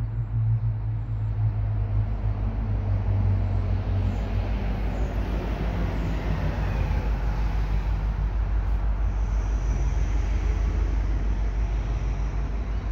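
Steady vehicle rumble with a low engine hum that fades over the first few seconds, and a faint high whine from about nine seconds in.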